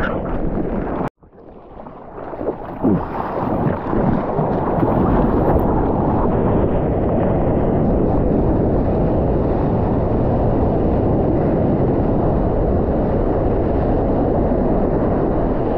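Steady rushing noise of ocean surf and wind buffeting the microphone. The sound drops out abruptly about a second in and builds back up over the next few seconds.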